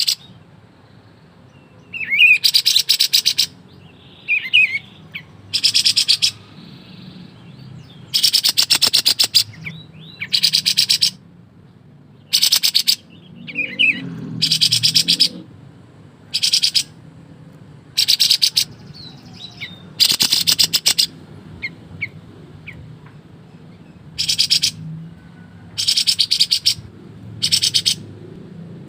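Kapas tembak bulbul singing in its rapid rattling 'ngebren' bursts, each under a second long and repeated every one to two seconds, with softer short chirps between.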